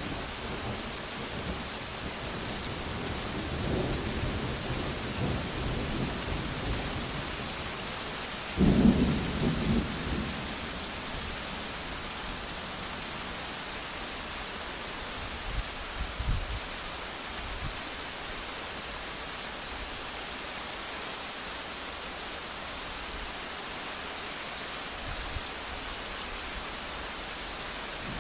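Steady rain falling through a passing thunderstorm, heard through a phone's microphone. Thunder rumbles from a few seconds in, then a loud clap about nine seconds in rolls off over a second or two, with a fainter low rumble later on.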